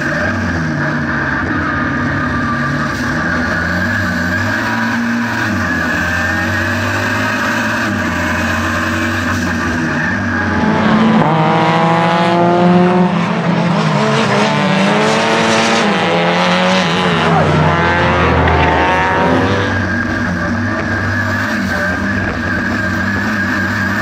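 Tuned 1.4-litre turbo four-cylinder engine of a Renault 5 GT Turbo at racing speed, heard inside the stripped cabin as a steady engine drone whose pitch wavers. About halfway through it gets louder and revs up in repeated rising sweeps, each cut off by a gear change, then goes back to the in-cabin drone near the end.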